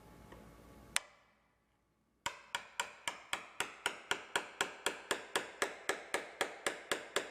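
Hammer striking a 1-inch wood chisel cutting into the edge of a wooden door: a single knock, then a steady run of quick, light taps about four a second as the chisel pares out the mortise for a deadbolt plate.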